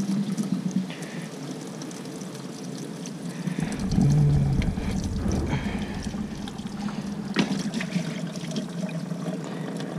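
Used green engine coolant pouring and trickling out of a disconnected water-pump-to-radiator hose, draining into a bucket below during a coolant flush. A brief low rumble comes about four seconds in, and a sharp click at about seven and a half seconds.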